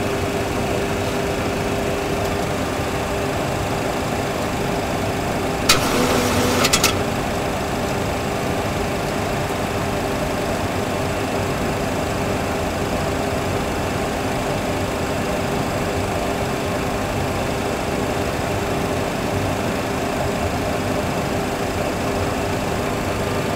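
Steady engine and airflow noise from a Boeing 737 full flight simulator's sound system on a single-engine approach, a constant hum with a few fixed tones. About six seconds in, a short burst of rapid clicking lasts about a second.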